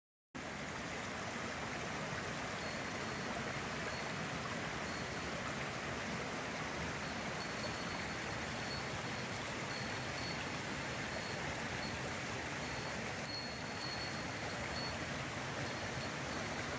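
Steady rush of running water from a stream, with faint high-pitched chirps coming and going over it.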